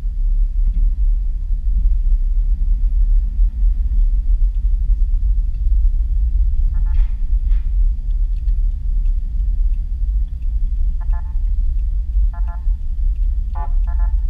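Low, steady rumble of a car driving, picked up by a dashboard camera inside the cabin. Several short beeping tones sound in the last few seconds.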